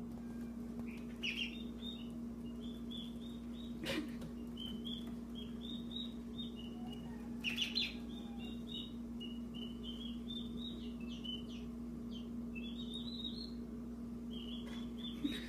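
Two-week-old turkey poults peeping: a near-continuous string of short, high peeps. A steady low hum runs beneath, with a couple of brief knocks, one about four seconds in and one near the middle.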